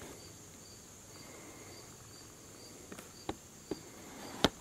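Quiet room tone with a faint, high chirp repeating about twice a second. A few sharp clicks come in the last second and a half, the last one the loudest.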